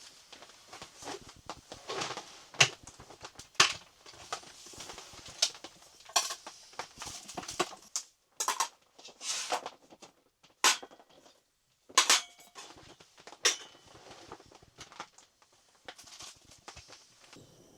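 Irregular sharp knocks and clicks mixed with short scraping sounds, broken by a few brief silent gaps, as objects are handled.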